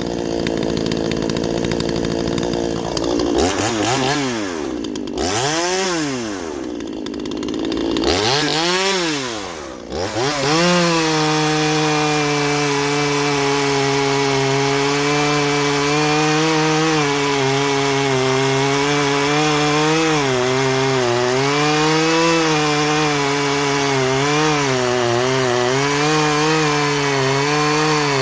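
Two-stroke chainsaw revved up and down several times, then held at a steady high speed with small dips in pitch as it cuts hardwood.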